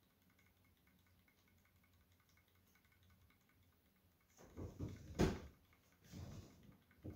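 Near silence for about four seconds, then a short run of soft knocks and bumps, the loudest a sharp knock about five seconds in, with more around six seconds and a click near the end.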